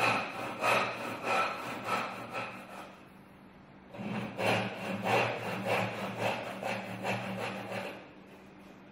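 Tenon saw cutting into a wooden workpiece in quick back-and-forth strokes, cutting a joint down to the marking line. Two runs of sawing, with a short pause about three seconds in, and the strokes stop near the end.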